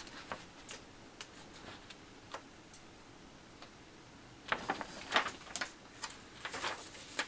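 Paper instruction sheet being handled: light clicks and taps at first, then a cluster of louder rustles and crackles from about four and a half seconds in as the sheet is moved and folded.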